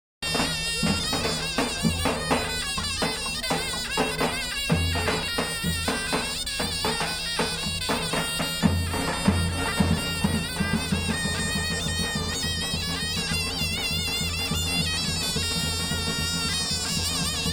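Traditional folk music: a shrill reed wind instrument plays a wavering, ornamented melody over a steady low drum beat.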